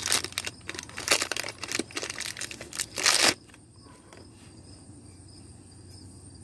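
Plastic packaging crinkling and rustling as it is handled and pulled open, stopping suddenly about three seconds in. After that only a faint, steady high-pitched background remains.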